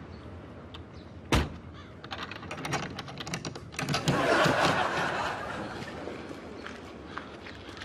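A car door shutting with one sharp bang about a second in, small metal clicks as a padlock is fastened onto a hasp on the door, then audience laughter rising and fading away.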